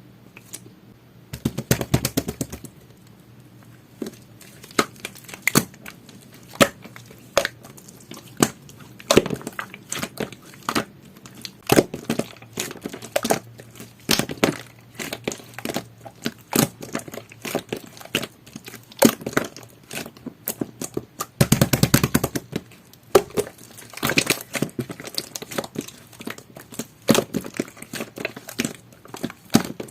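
Jelly-textured fudge slime being squeezed and worked by hand, giving a string of sticky crackling pops and clicks, with two denser bursts of crackling, one just after the start and one about two-thirds of the way through.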